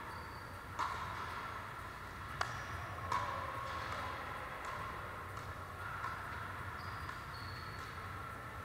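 Pickleball paddles striking the hard plastic ball during a rally, several sharp pops about a second apart that echo in a gymnasium, with a few short high squeaks from shoes on the wooden floor.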